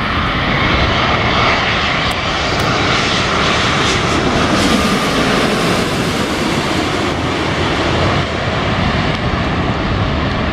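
Jet airliner passing low overhead on final approach to land, its engines loud and steady, with a faint tone sliding lower in pitch around the middle.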